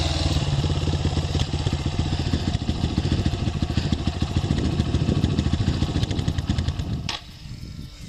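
Dirt bike engine running, dropping from riding speed to a low idle with each firing beat heard separately, then cut off with a sharp click about seven seconds in.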